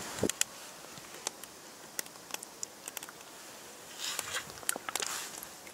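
Sparse light clicks and crackles, with a soft pouring sound about four seconds in as egg batter is poured from a plastic bottle into a plate.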